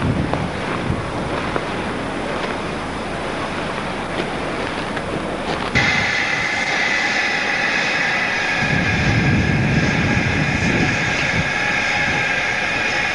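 Steam locomotive, a USATC S160 2-8-0: a rough noisy rumble with scattered clicks, then a sudden change about six seconds in to a louder, steady hiss of steam.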